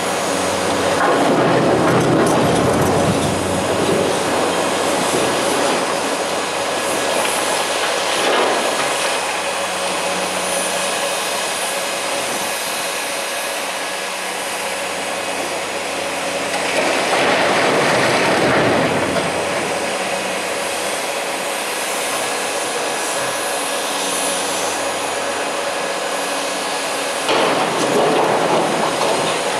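Large CAT hydraulic excavator's diesel engine running steadily under load while it digs and loads blasted rock. Rock grinds and clatters against the steel bucket in several bursts, the longest about two-thirds of the way through.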